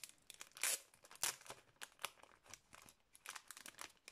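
Thin clear plastic wrapping crinkling and crackling in irregular bursts as it is peeled off a photo card by hand, with two louder, longer rustles about a second in.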